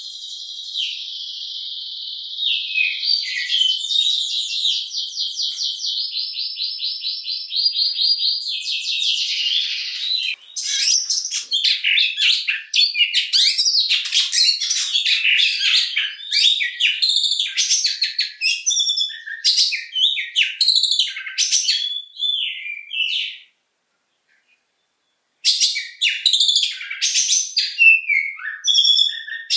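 Oriental magpie-robin singing. It opens with a long rapid-fire trill of high notes lasting about ten seconds, then moves into loud, varied whistles and chattering phrases. The song breaks off for about two seconds before resuming.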